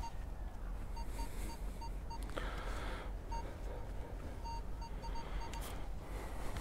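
Minelab Vanquish 540 metal detector giving short beeps, all at one pitch and in clusters, as its coil is swept over a buried target in dry sand. A low steady rumble runs underneath, with a brief scuffle about two and a half seconds in.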